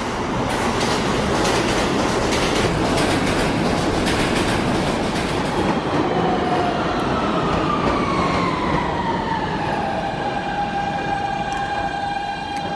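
New York R160 subway train with Siemens propulsion pulling into a station: wheels rumbling and clattering on the rails, then from about halfway the motors whine in several tones that fall in pitch as it brakes, levelling into a steady whine near the end.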